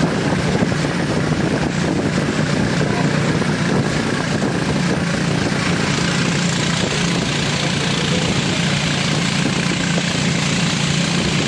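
Motorboat engine running at a steady speed, a constant low drone, with the rush of water and wind along the moving boat.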